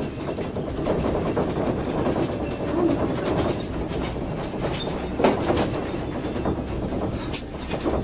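A house shaking in an earthquake: a steady rumble with windows and loose household objects rattling and clattering irregularly.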